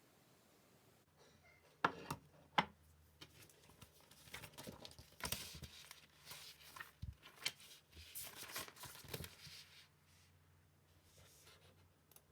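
Two sharp clicks, then several seconds of close rustling and tearing, as of something being handled and torn by hand.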